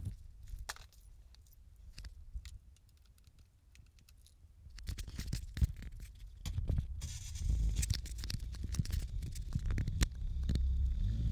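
Keys jangling, with clicks and scraping from close handling of a small action camera. A low rumble and a steady low hum come in during the second half.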